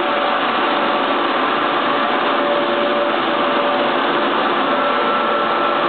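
Steady, even rushing background noise of an aquarium hall, with a few faint held tones in it.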